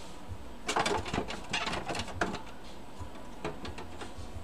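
Plastic printer casing being handled and fitted onto the printer body: a burst of clicks, knocks and scraping of hard plastic parts from about a second in until past two seconds, then a single click near the end.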